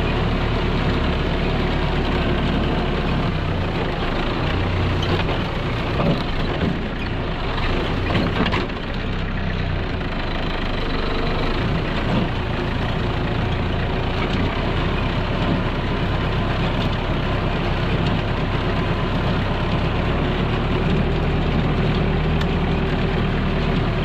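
Compact farm tractor engine running steadily as the tractor is driven through tall grass, with a couple of brief louder knocks about six and eight seconds in.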